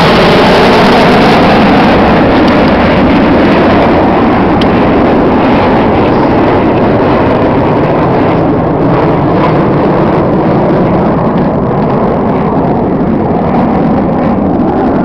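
Red Arrows BAE Hawk T1 display jet passing overhead: a loud, steady jet engine roar that slowly eases as the aircraft draws away.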